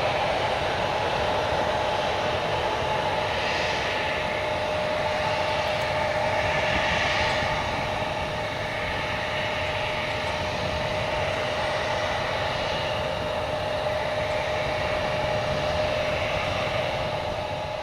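Jet airliner engines running steadily: a constant whine over a broad rush of noise.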